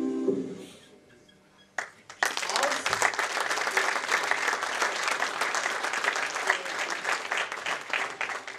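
Music fades out, and after a short lull an audience breaks into steady applause about two seconds in.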